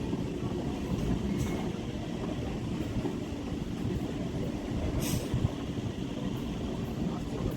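Electric suburban local train (EMU) heard from aboard, a steady low rumble of running gear on the track, with a short hiss about five seconds in.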